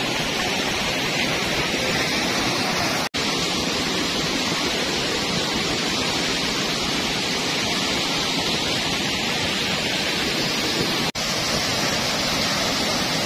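Steady hiss of rain falling on jungle foliage, cut off for an instant twice, about 3 and 11 seconds in.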